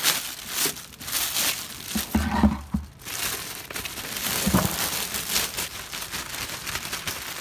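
Clear plastic bag crinkling in repeated bursts as it is handled and shaken out, tipping dried bread crusts into a plastic bucket.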